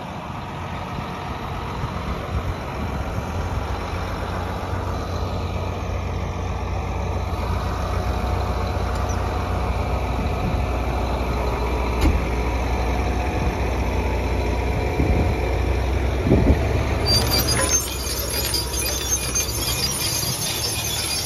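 John Deere tractor's diesel engine running steadily as it pulls a MaxEmerge 2 planter past, growing slightly louder as it nears. Near the end a dry rattling hiss joins in as the planter's row units pass close by.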